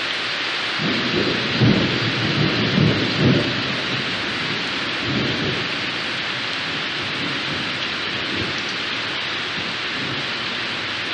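Steady rain with thunder rumbling. A few rolls of thunder come between about one and three and a half seconds in, and a weaker one at about five seconds.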